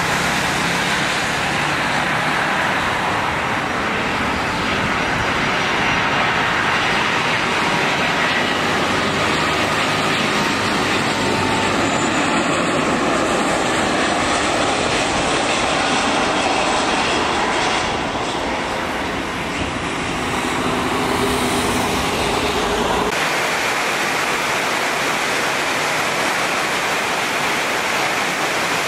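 Airbus A330-343's Rolls-Royce Trent 700 turbofans running as the jet comes in low and lands on a wet runway, over a steady hiss of heavy rain. About three-quarters of the way through, the engine sound drops away and only the rain hiss remains.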